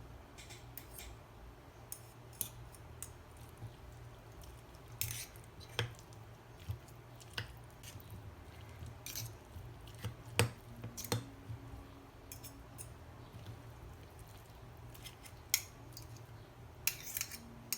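Irregular small clicks and taps over a low steady hum.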